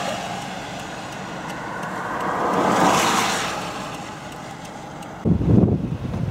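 A car passing on the road, its noise swelling and then fading away. About five seconds in, wind starts buffeting the microphone with sudden low gusts.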